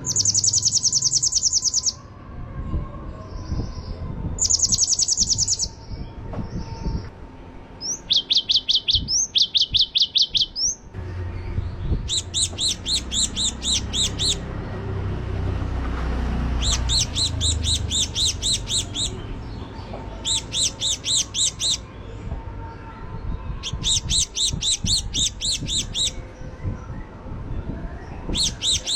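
Gelatik bird giving its 'tembakan' call: about nine loud bursts of fast, high-pitched repeated notes, each lasting one to two seconds, with short pauses between. A low rumble sits underneath in the middle.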